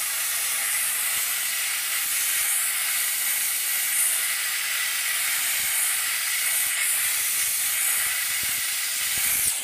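Vapor Chief commercial steam cleaner at its maximum pressure setting, steam hissing steadily out of a brush attachment pressed against a car's fender. At this highest pressure the steam condenses on the surface and leaves it wet.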